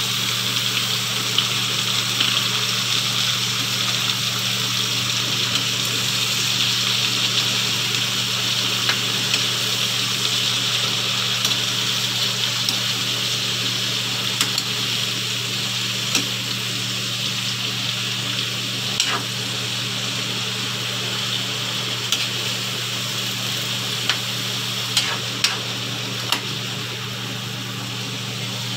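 Chopped bottle gourd (upo) sizzling in a wok with sautéed pork as it is stirred. There is a steady frying hiss with scattered clicks of the metal spoon against the pan, and the sizzle eases a little in the second half.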